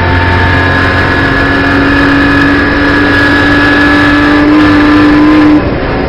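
BMW M240i Racing Cup's turbocharged straight-six heard from inside the cockpit, under full load in a high gear with its note climbing slowly as the car gathers speed. About five and a half seconds in the rising note breaks off abruptly.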